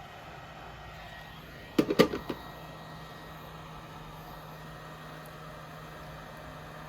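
Steady blowing hum of a heat gun shrinking tubing. About two seconds in there is a quick cluster of four sharp knocks, like a tool or part set down on a hard surface.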